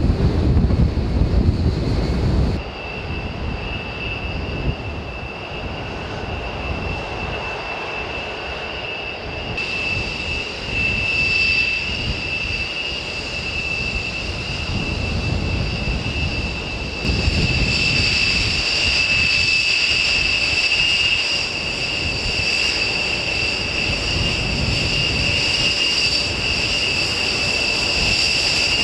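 Jet engines of a B-1B Lancer bomber running with a steady high-pitched whine over a low rumble. The sound changes abruptly a few times, a little after the start, about a third of the way in and past the middle, as it cuts between takes of the aircraft.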